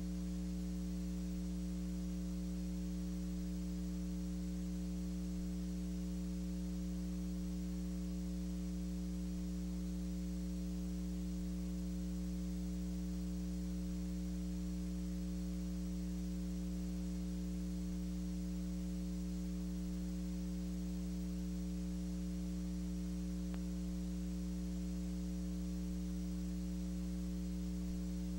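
Steady electrical mains hum with its overtones over faint hiss, unchanging throughout.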